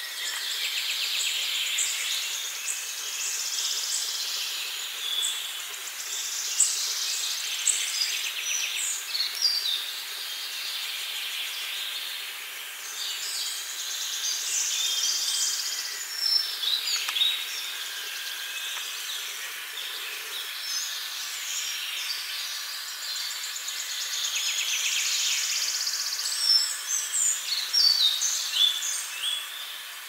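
Woodland songbirds singing, several overlapping songs and sharp chirps that swell and fade in waves over a faint steady hiss.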